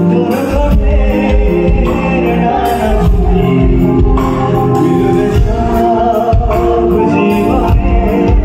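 Live amplified music: a male singer singing into a microphone over a band with a steady beat.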